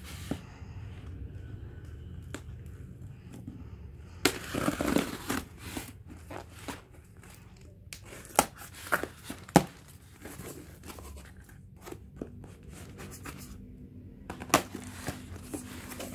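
Scissors slitting packing tape on a cardboard box, then the cardboard flaps being pulled open: scraping, tearing and crinkling, with a busy stretch about four seconds in and several sharp clicks and taps afterwards.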